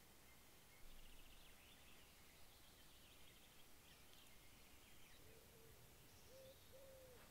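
Faint wild birds calling over a quiet hiss. High chirping and trilling notes come through the first few seconds, then a short run of low hooting notes near the end.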